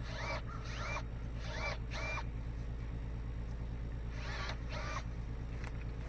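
Cordless Milwaukee M12 pruning shears' motor whirring in six short bursts, grouped in three pairs, each rising quickly in pitch and then holding, as the trigger is pulled to cut branches. A steady low hum runs underneath.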